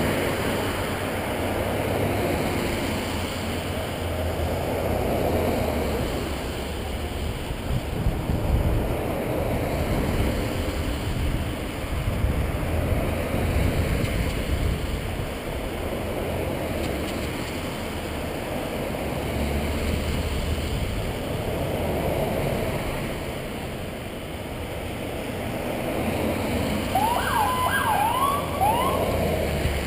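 A procession of vehicles passing one after another, the engine and tyre noise swelling and fading. Near the end comes a short burst of emergency-vehicle siren whoops, rising and falling.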